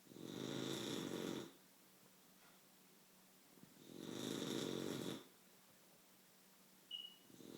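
Slow, regular snoring: two long snores about four seconds apart, with a brief high squeak near the end.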